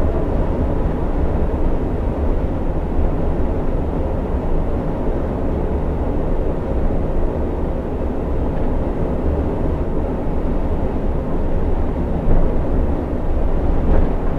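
Steady drone of a coach cruising on a highway, heard from the driver's cab: a low engine hum under road and tyre noise.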